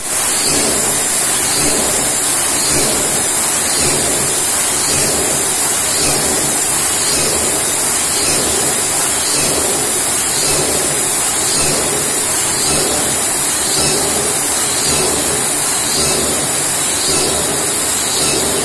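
A 630-ton K8538 hot forging crank press running, heard as a loud, steady hissing drone with a faint regular pulse.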